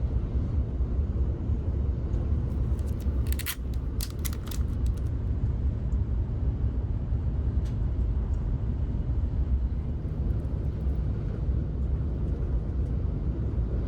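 Steady low rumble, like a vehicle running, with a few sharp clicks about three to five seconds in.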